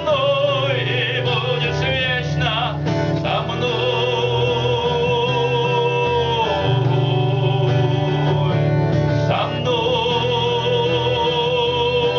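Music: a male voice singing long held notes over guitar accompaniment.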